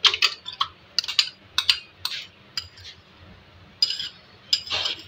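Spoon clinking and scraping against a glass bowl and a blender jar as yogurt is scooped into the blender. It makes irregular short clinks and taps, with a longer scrape near the end.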